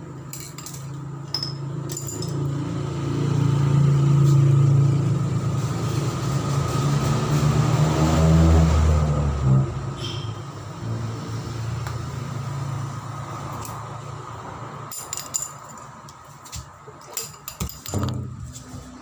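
A motor vehicle's engine running close by, building up over the first few seconds, loudest for several seconds, then dropping away about halfway through. Near the end, a few light clicks and taps of pencils being put down on a hard floor.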